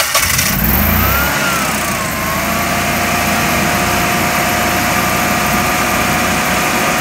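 Generac 17 kW standby generator's OHVI V-twin engine starting up in manual mode: a loud rush in the first half-second, a whine that rises and falls back as it comes up to speed about a second or two in, then steady running.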